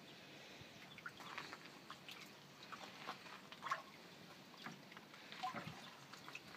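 A white mink swimming in a pool of water under wire mesh: faint, irregular small splashes and clicks.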